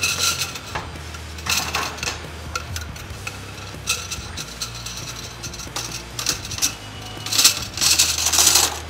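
Stainless steel coil immersion wort chiller clanking and scraping against the rim of the Brewzilla kettle as it is handled and lowered into the wort, in a series of separate metallic knocks. Near the end comes a louder, denser stretch of noise as the chiller settles in and water spills out of its tubes.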